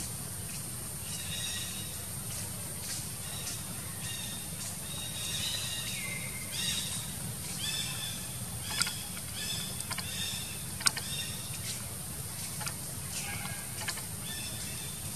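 A young long-tailed macaque squeals and shrieks repeatedly in high-pitched cries, some falling in pitch, over a steady low hum. Two sharp clicks come in the second half.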